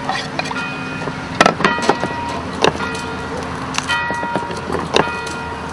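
Knife knocks and cuts on a wooden chopping board while vegetables are prepared: sharp, single knocks about a second apart. Steady held notes of background music sound underneath.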